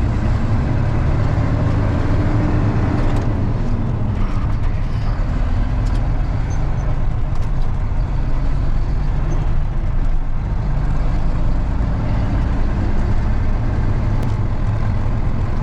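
Freightliner semi truck's diesel engine running, a steady low drone heard from inside the cab, its pitch rising and then falling once in the first few seconds.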